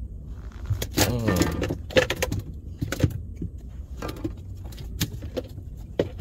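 Fishing tackle being handled in a boat: sharp clicks and light rattles, roughly one a second, over a steady low rumble, with a short pitched voice-like sound about a second in.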